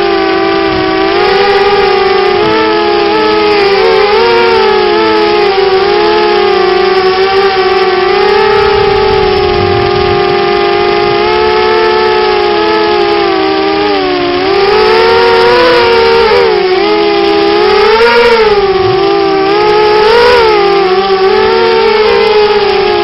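Coptergiest CGX 250 quadcopter's brushless motors and propellers whining in flight, several close tones rising and falling in pitch together with throttle changes, with higher swells in the second half.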